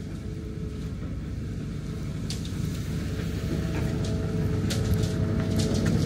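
Construction machinery on the sea-wall works, its engine running steadily and growing louder, with a few sharp clicks scattered through.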